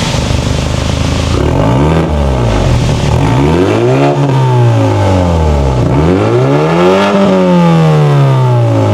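Exhaust of a 2021 BMW 3 Series revved through a newly fitted unbranded valved aftermarket muffler. The engine note climbs and falls back three times, the later revs held longer, each rising for about a second and easing down more slowly.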